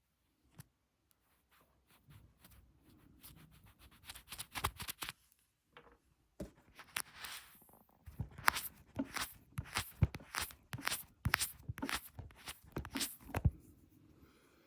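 Close-up ASMR fingertip tapping and scratching: soft scattered rubs and clicks at first, then from about 8 seconds in a quick, dense run of sharp taps and clicks that stops shortly before the end.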